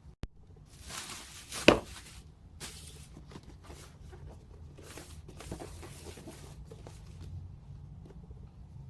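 Cardboard box and packaging being handled and opened, with rustling and scraping and one sharp knock about two seconds in; the handling stops near the end.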